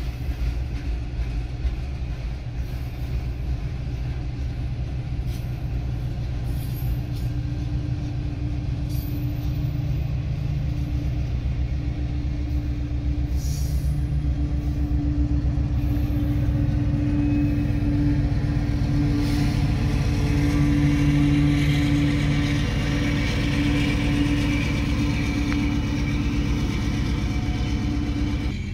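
Vehicle noise inside a car's cabin: engine and road noise mixed with the rumble of a passing freight train. It is a steady drone that grows louder through the second half.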